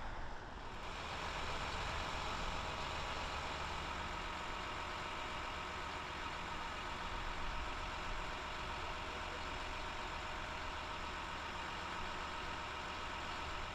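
An engine idling steadily, a constant hum with no change in speed.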